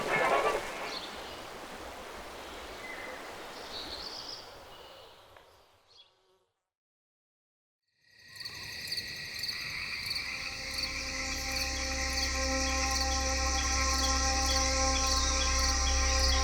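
A chorus of chirping night insects fades in after a couple of seconds of silence, with regular high chirps over a dense steady layer. A low steady hum joins under it.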